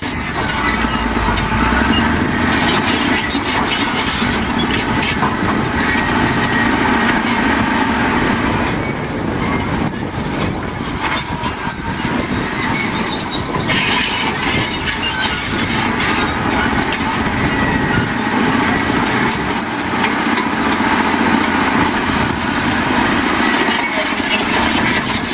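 Bulldozer clearing stumps: its diesel engine runs under load while the steel tracks squeal with high, steady tones and clank.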